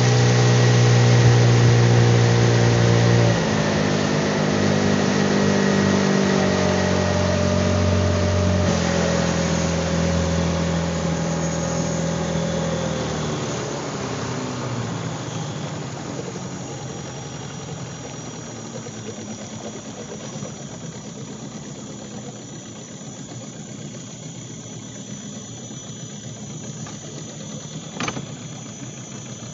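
Small boat outboard motor running at speed, throttled back in three steps over the first dozen seconds and fading out as the boat slows to a drift. After that comes a steady high hiss of insects, with one sharp click near the end.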